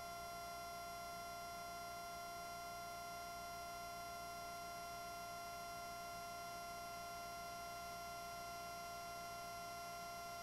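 Steady electrical whine of several fixed high tones over a low hum, unchanging in pitch and level, on the aircraft's radio/intercom audio feed between transmissions.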